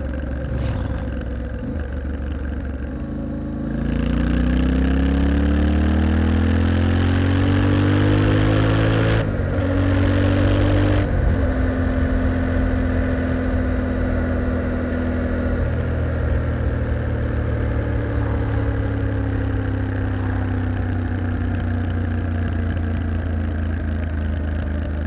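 A vehicle engine speeding up, its pitch rising for about five seconds. A break and drop in pitch a little before the middle sounds like a gear change. It then runs at a steady pitch that slowly sinks.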